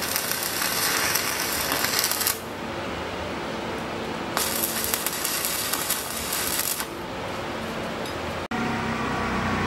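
Stick (arc) welder crackling and hissing as the electrode arc burns, in two welds of about two and a half seconds each: tack welds on steel seat hinge brackets.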